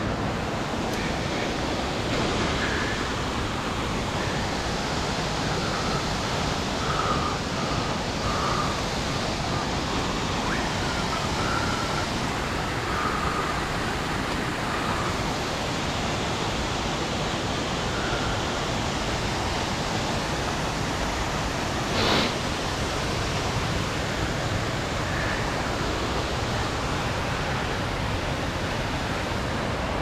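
Steady rushing of the large Bairadi waterfall heard through the forest, with a few faint short chirps and one sharp snap about three-quarters of the way in.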